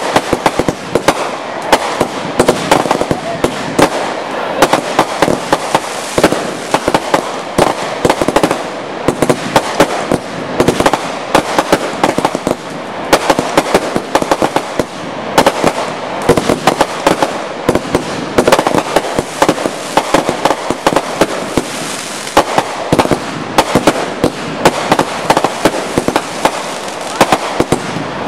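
Aerial fireworks bursting in a rapid, continuous barrage of sharp pops and bangs, many each second.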